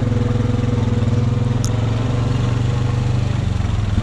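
Honda Rubicon ATV's single-cylinder engine running at a steady speed while riding along a dirt trail, with one brief high chirp about one and a half seconds in.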